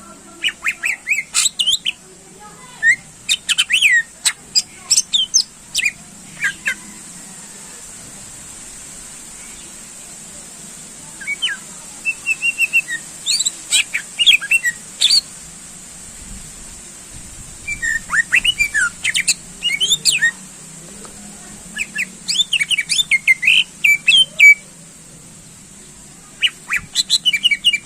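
Greater green leafbird (cucak ijo) singing loud phrases of rapid, sharp, high chattering notes. There is a pause of a few seconds about a third of the way in and a shorter one past the middle, over a steady faint hiss.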